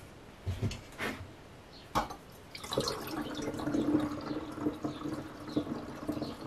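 A few light knocks, then liquid poured from a stainless steel bowl through a funnel into a glass demijohn: a steady trickle of diluted honey and rhubarb water starting a little under three seconds in.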